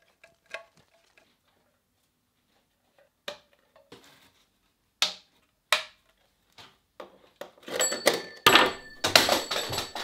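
A few scattered clicks from a screwdriver and 3D-printed plastic wall clip. Then a compressed-air hose is pulled along a wooden shelf and pressed into the clips, with a few seconds of clattering and rubbing and a heavier knock about eight and a half seconds in.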